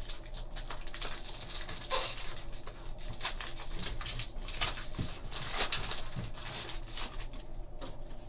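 Foil trading-card pack wrapper crinkling and rustling as it is torn open by hand, then the stack of cards inside being handled, with a dense run of irregular crackles.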